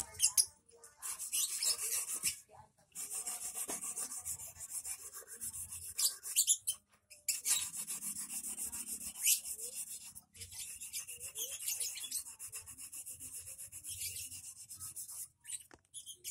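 A 2.5 mm stainless-steel wire eel hook being honed by hand with a sharpening stone: quick scraping rub strokes in several runs of a few seconds each, with short pauses between runs.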